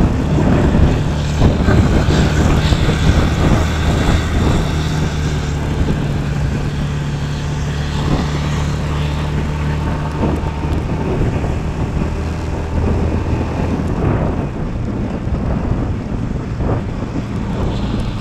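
Motorcycle engine running at a steady cruising speed, with wind rushing over the camera microphone; the engine note eases off near the end.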